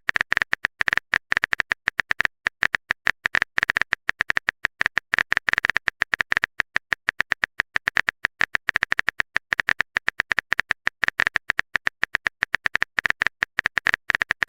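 Phone keyboard typing sound effect: quick runs of short clicks, many a second, with brief pauses between runs as messages are typed out.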